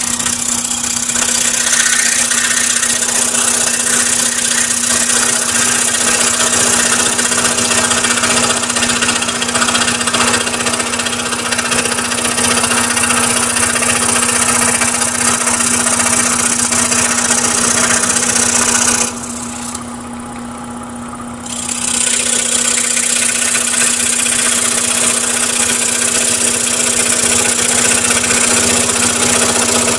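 Scroll saw running, its blade sawing through a stack of layered wood coaster blanks: a steady motor hum under a dense rasping hiss of the cut. About two-thirds of the way in, the cutting hiss stops for a couple of seconds while the saw keeps running, then the cut resumes.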